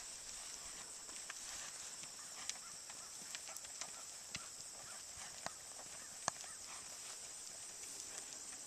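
Faint hoofbeats of a ridden Tennessee Walking Horse mare moving along a dirt track: irregular soft clicks, one sharper than the rest about six seconds in, over a steady high hiss.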